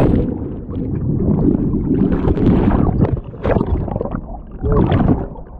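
Muffled underwater rumble and gurgling of churning water in a pool below a waterfall, heard with the microphone submerged. The sound turns muffled right at the start as the microphone goes under, then surges and fades irregularly.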